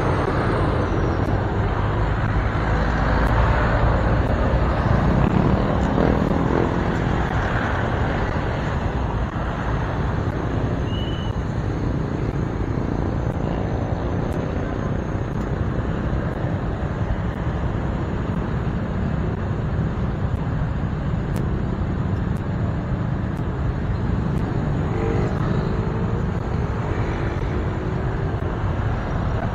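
Motorcycles idling in a tight pack stopped at a red light, with steady city traffic noise around them.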